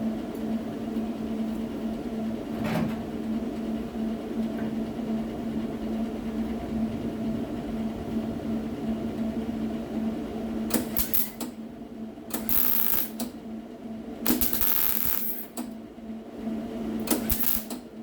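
A steady electrical hum, then from about two-thirds of the way in several short bursts of welding, each under a second long, with a loud crackling hiss.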